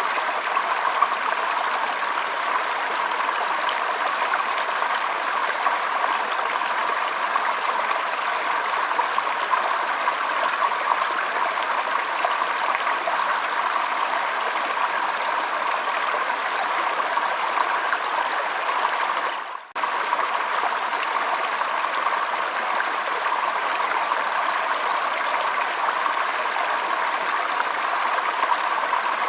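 Water flowing steadily with an even rushing sound, like a stream. It drops out for a split second about twenty seconds in.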